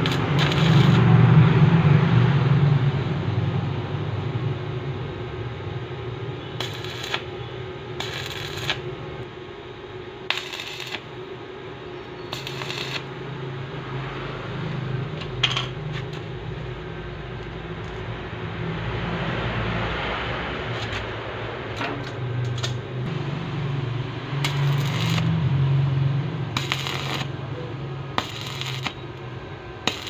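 Stick arc welder laying short tack welds on a steel door hinge: several brief crackling bursts, each under a second, over the steady hum of the welding machine.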